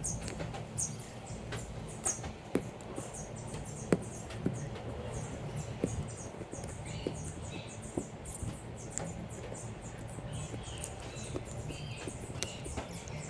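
Single-edge razor blade scraping cured windshield-repair resin off the glass in short, repeated strokes, with a few sharp clicks of the blade on the glass. The resin is fully hardened, and the scraping shaves it level with the windshield over the filled rock chip.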